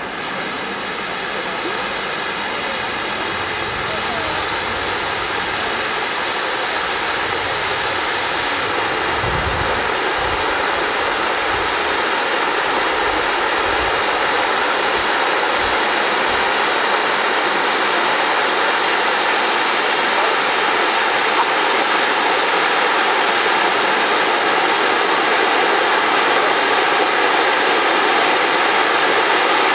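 Three Zink Supervulkan ground fountains spraying sparks with a steady, loud hiss that builds over the first several seconds as they come up to full height.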